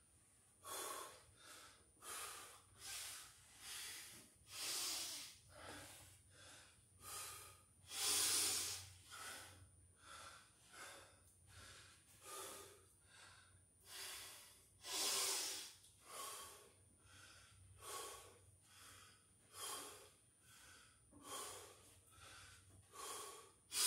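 A man breathing hard through his mouth, out of breath after a set of six-count burpees, at about one breath a second, with a couple of heavier breaths partway through.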